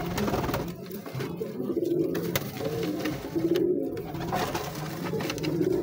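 Domestic pigeons cooing, a low warbling that comes and goes, with rustling and scraping as a hand pushes nesting material around inside a wooden nest box.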